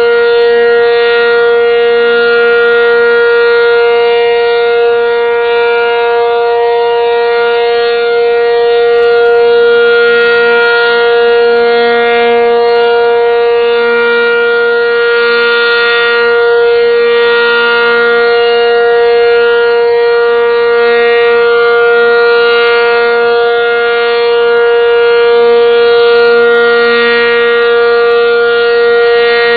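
Cyclone warning siren sounding a loud, steady, unbroken tone that neither rises nor falls in pitch.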